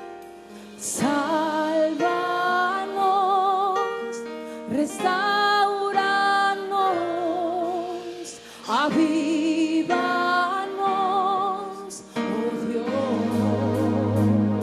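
A woman singing a slow Spanish worship song solo into a microphone, holding long phrases with a wide vibrato over soft instrumental accompaniment. Near the end a fuller, lower accompaniment swells in.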